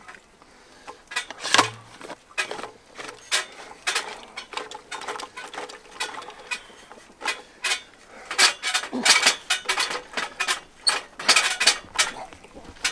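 Irregular clicks, knocks and creaks of plastic irrigation pipe fittings being twisted and handled while a reducer joint is undone. The sound is busiest in the second half.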